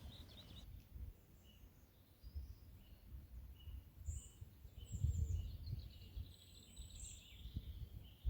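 Common redstarts calling: short high notes repeated about once a second, with a longer buzzy twittering run about five to seven seconds in, over a low rumble.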